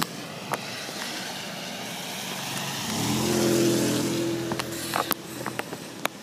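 A vehicle drives past on a wet street: a steady engine hum and tyre hiss swell to their loudest about three and a half seconds in, then fade. Under it runs a steady hiss of rain, with a few sharp ticks.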